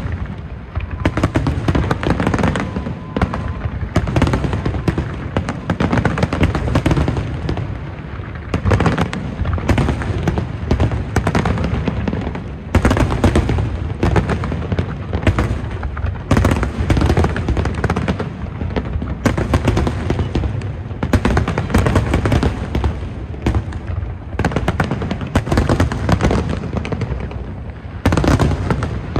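Large aerial fireworks display: a dense, continuous barrage of shell bursts and crackle, with louder surges of bursts every few seconds.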